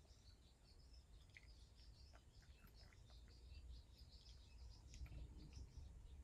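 A cat crunching dry kibble from a dish: faint, irregular little crunches and clicks.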